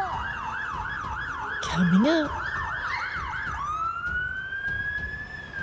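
Fire engine's electronic siren sounding a fast yelp, about three to four up-and-down sweeps a second, then switching to a slow wail that rises and then falls. A short high voice cries out briefly in the middle.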